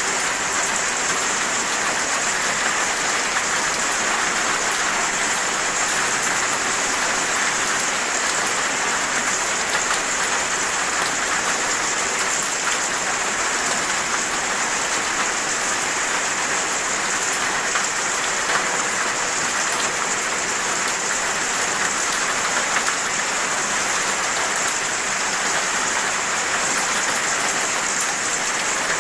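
Steady rain falling, an even hiss of many raindrops hitting a surface with fine drop ticks, no thunder.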